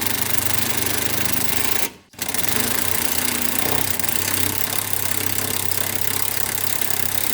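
Low-torque impact wrench hammering a nut off with a deep socket, in two long runs with a brief stop about two seconds in.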